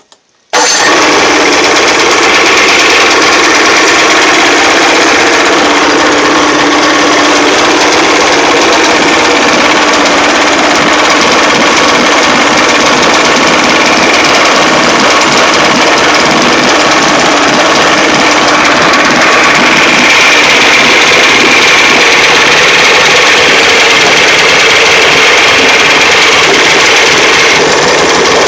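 A 1972 Evinrude 50 hp two-stroke outboard motor catches about half a second in and then runs steadily. This is its first start after more than two years of standing unused.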